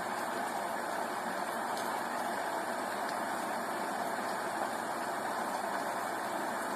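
Steady rain: an even, unbroken hiss with a few faint scattered drop ticks.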